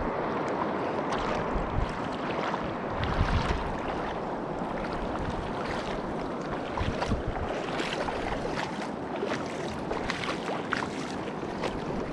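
Steady rush of open water with wind buffeting the microphone, broken by scattered short knocks and splashes.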